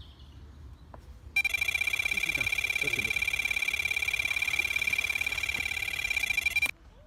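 Electronic carp bite alarm screaming: a rapid, continuous string of high-pitched beeps starts about a second and a half in and cuts off suddenly near the end. It signals a run, a carp taking line off the reel.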